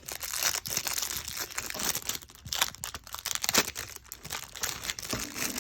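Packaging being torn open and crinkled by hand, an irregular run of crackling and rustling with sharper tearing strokes, the loudest a little past the middle.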